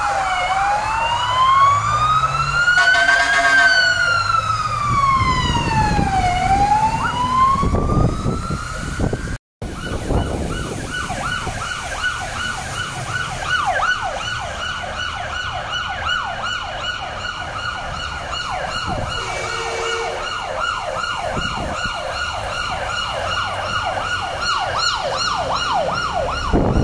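Fire appliance sirens: a slow wail rising and falling over a few seconds, then after a brief break a fast yelp sweeping several times a second. Short horn blasts sound twice.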